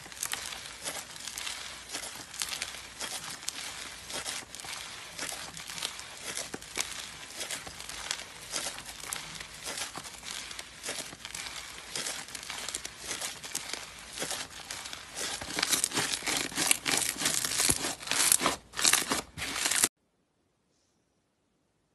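Fluffy blue slime being kneaded and pulled apart by hand, a dense crackling and tearing that grows louder in the last few seconds and then cuts off abruptly near the end.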